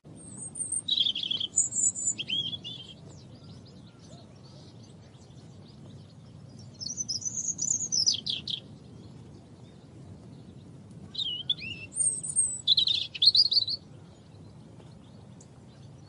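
European robin singing: three short, high, warbling phrases spaced a few seconds apart, over a faint steady low background rumble.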